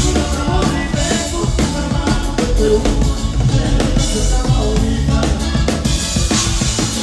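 Live norteño band music: accordion-led tune over bass and a drum kit keeping a steady beat.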